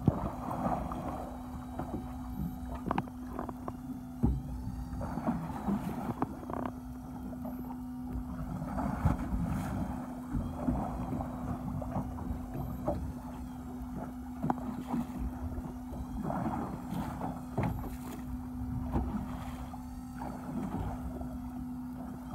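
Sea water slapping and splashing against the hull of a drifting fishing boat, in irregular flurries with scattered knocks, over a steady low hum.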